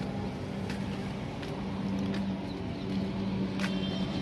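A truck engine running steadily, a low hum that grows slightly louder toward the end, with a few faint clicks.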